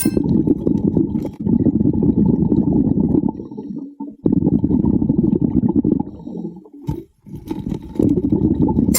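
Underwater rumble of a scuba diver's exhaled bubbles, in long bursts broken by short pauses about four and seven seconds in.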